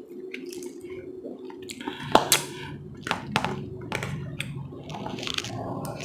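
Close-miked wet mouth sounds of eating ramen noodles: slurping, chewing and lip smacks in short irregular clicks, with one sharp louder click about two seconds in. A steady low hum runs underneath.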